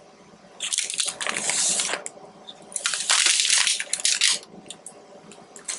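Close-miked chewing of a soft-baked chocolate cookie, moist and squishy. It comes in two stretches of about a second and a half each, the first about half a second in and the second about three seconds in, followed by a few small mouth clicks.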